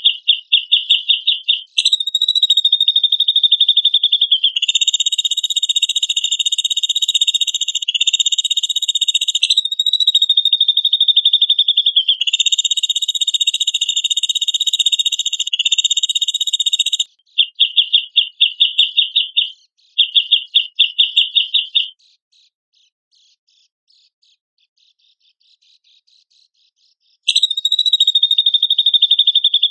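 Recorded song of a cucak jenggot (grey-cheeked bulbul): fast, evenly pulsed high trills alternating with long, sustained buzzing phrases, broken by short pauses, then a pause of about five seconds before the trilling resumes near the end.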